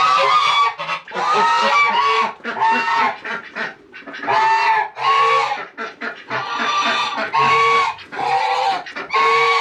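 Domestic geese honking, a run of loud calls one after another with a few birds overlapping.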